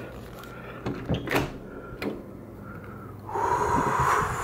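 A house door being opened, with a few clicks and a sharp knock about a second in. From about three seconds in comes a steady rush of wind on the microphone as it goes out into a snowstorm.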